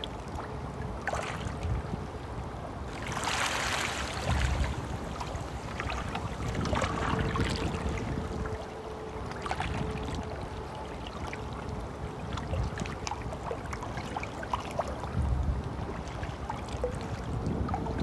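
Stream flowing: a steady babble of running water with many small splashes and gurgles, swelling briefly a few seconds in.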